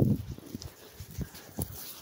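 Footsteps on grass: irregular low thumps roughly every half second, with brief rustling.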